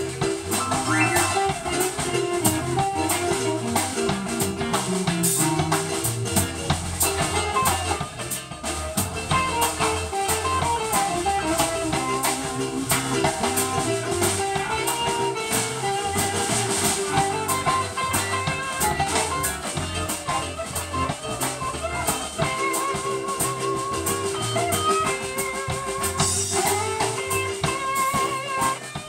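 Live blues band playing: electric guitar lines over drum kit and keyboard, with a steady beat throughout.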